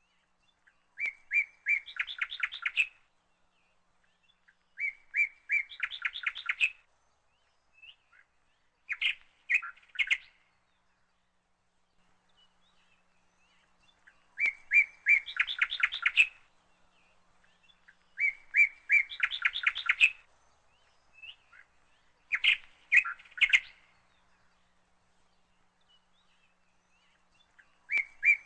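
A songbird singing the same phrase over and over: a few separate high notes, then a fast trill. Shorter snatches of song come between the phrases.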